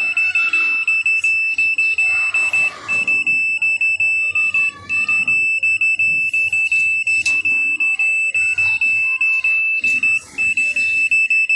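SM999 satellite finder meter beeping a steady high-pitched tone, chopped into quick pulses with a few short breaks. This is its signal-lock alert, sounding because the meter has locked onto the satellite signal.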